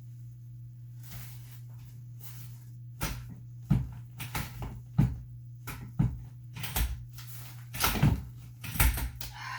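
Playpen frame being handled during assembly: rustling, then a run of about six sharp knocks and rattles of its rails and fittings. A steady low hum lies underneath.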